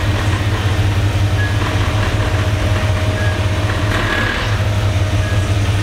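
Engine of an old American full-size van running at a steady low idle while the van creeps forward; a smooth, even note that sounds pleasant rather than loud.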